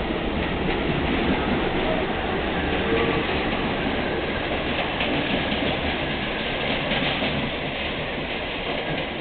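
R32 subway train running out along the tracks, its wheels clacking over the rail joints, fading a little near the end as it moves away.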